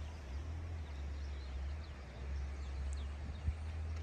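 Wind buffeting the microphone in a low, swelling rumble, with faint, short bird chirps scattered through and one short thump about three and a half seconds in.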